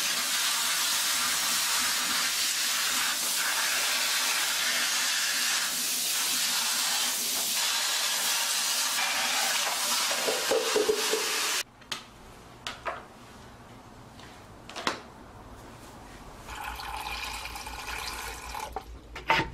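Water spraying steadily onto a vacuum cleaner's plastic dust bin and filter as they are rinsed, cutting off suddenly about twelve seconds in. A few light knocks follow, then a kitchen tap runs into a metal colander near the end.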